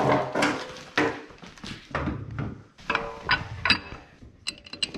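Knocks and clunks of a metal-cased home battery pack and its base-plate fittings being handled and set into place, some of them ringing briefly, with a quick run of small metallic clicks near the end.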